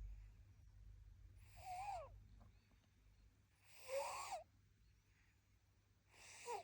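A sleeping baby snoring: three squeaky, wheezy snores about two and a half seconds apart, each a short squeak that rises and falls over a breathy rasp.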